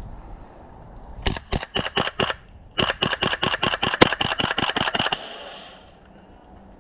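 Airsoft gun firing two strings of rapid shots at about six a second: a short string of about six shots about a second in, then a longer string of about two seconds with a steady high whine running under the shots.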